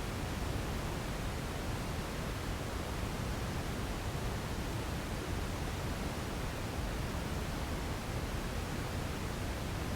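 Steady white noise for sleep: an even, unbroken rushing hiss with no changes, weighted toward the low end.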